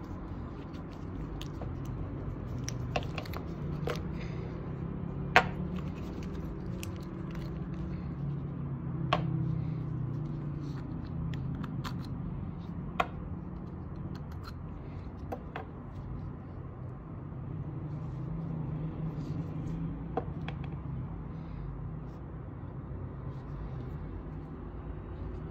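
Scattered small clicks and taps of hard plastic binocular parts being handled and unscrewed, the sharpest about five seconds in, over a steady low background hum.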